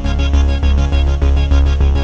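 Background music with a steady beat and a strong, pulsing bass line.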